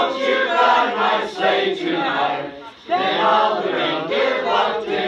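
A group of carolers singing a Christmas carol together, with a short break between phrases about three seconds in.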